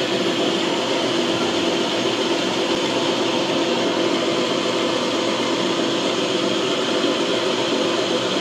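Motor-driven disc grinding mill running steadily, its spinning stone grinding horchata ingredients into a fine meal on a second pass: a constant mechanical hum and whir with no let-up.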